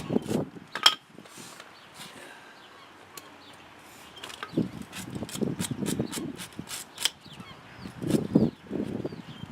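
Hand work on the plow's metal parts: irregular clicks, knocks and scraping in three bursts, near the start, around the middle and near the end.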